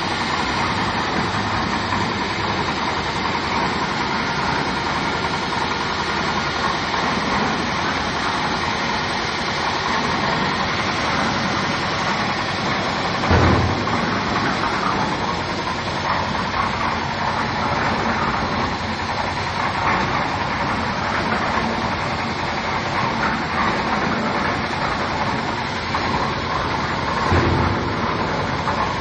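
Concrete mixer running steadily, its engine and turning drum making a continuous mechanical din, with a brief louder thump about halfway through and another near the end.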